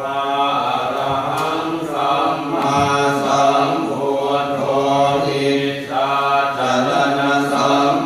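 Buddhist prayer chanting (suat mon) at a Thai temple: voices reciting in a low, near-level chant.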